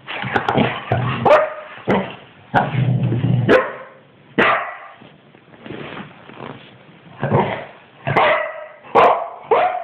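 Springer spaniels barking, yipping and growling in a rough play tug-of-war over a soft toy: a string of sharp barks and yips broken by low growls.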